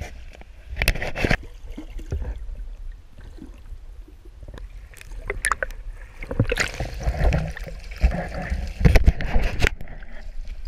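Shallow river water splashing and sloshing around a wading angler and a hooked steelhead, loudest in the second half, with irregular knocks and a low rumble on the microphone.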